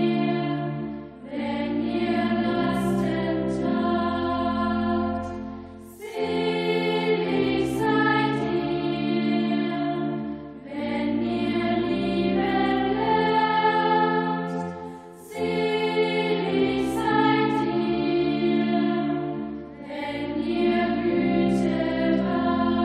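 Slow choral music: voices hold sustained chords in phrases of about four to five seconds, with a short dip in loudness between phrases.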